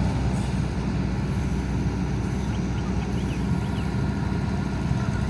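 Heavy construction machine's engine running steadily, a continuous low rumble.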